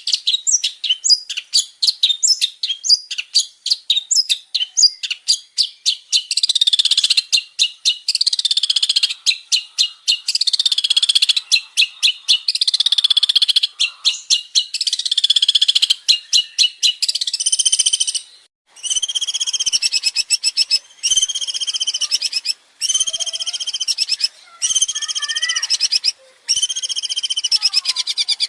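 Male long-tailed shrike (cendet) singing a long, varied song. It starts with fast runs of sharp, chattering notes. From about two-thirds of the way in, it turns to a series of repeated phrases, each about a second and a half long, separated by short breaks.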